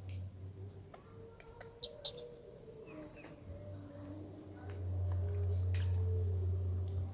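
Infant long-tailed macaque giving short, high-pitched squeaks: a quick cluster about two seconds in and two more near the six-second mark. A low steady rumble underlies the second half.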